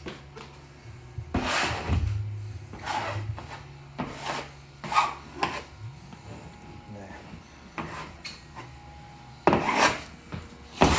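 Squeegee dragged in firm strokes over pasted wallpaper on the wall: about six rasping rubbing sweeps, the strongest about a second in and near the end, pressing the paper flat onto the paste.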